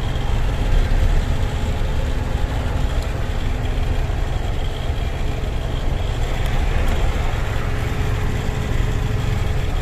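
Steady engine rumble with road and wind noise from inside the cab of a heavy goods truck on the move.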